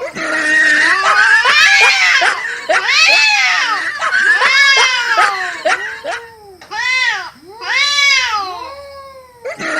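Cats yowling in a fight: a run of loud, wavering wails that rise and fall in pitch, about one a second, some overlapping.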